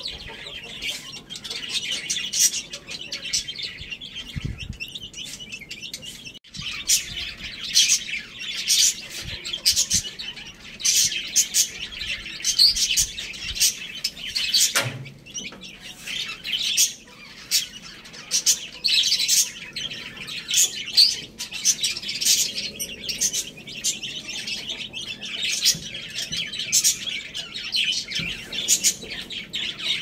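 Baby chicks peeping continuously: many short, high cheeps overlapping one another.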